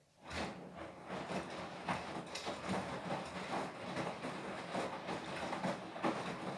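Beko WTK104121W washing machine starting up again out of silence about a third of a second in: the drum turning, with a busy mechanical clatter of motor and tumbling load that then runs on steadily.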